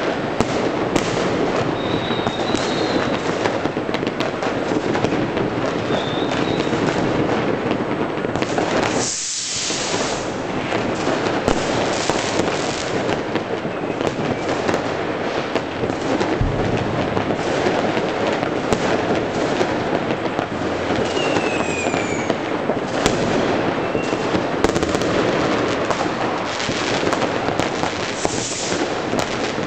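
Citywide New Year's Eve fireworks: a constant crackle of many overlapping bangs and firecrackers. A few short rocket whistles sound, with falling whistles about two-thirds of the way in and a brief loud hiss about a third of the way in.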